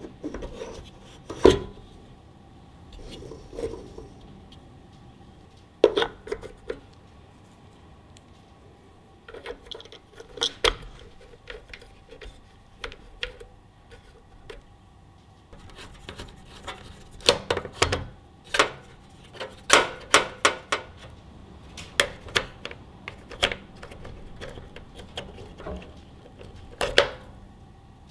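Hands handling a flux-core welding-wire spool and the welder's plastic spool holder and wire-feed parts: scattered clicks, knocks and light rubbing, with a quick run of clicks a little past the middle.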